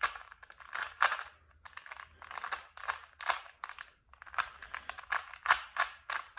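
Plastic Rubik's cube being turned by hand: rapid clicking as its layers snap round, in quick runs with short pauses.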